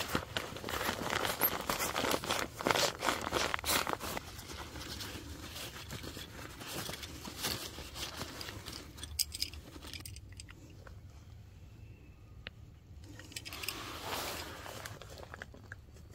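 Nylon sleeping pad crinkling and rustling as it is handled, loudest in the first few seconds. Then come quieter scattered rustles, a few light clicks, and another short burst of rustling near the end.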